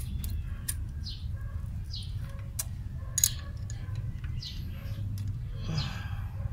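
Scattered light metal clicks and taps of hand tools working the valve train of a stopped Toyota 4K engine as an intake valve's clearance is set to 0.18 mm, with one sharper click a little past three seconds in. Short high bird chirps come every second or so over a steady low hum.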